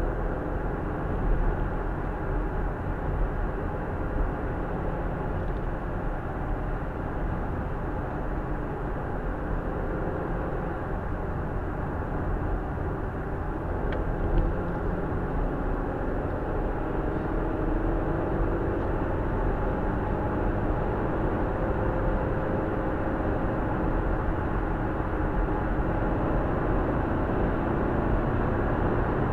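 A car driving, heard from inside the cabin: steady road and engine noise, with the engine hum rising a little in pitch past the halfway point and a light tick about halfway through.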